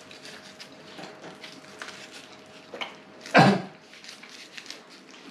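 Eating sounds: close-up chewing with many small clicks and soft rustles, and one louder, short sound about three and a half seconds in.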